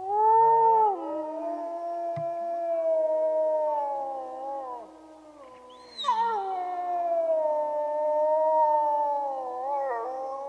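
Several canines howling together in long, overlapping, gliding calls. They break off about five seconds in, and a second round of howls starts a second later.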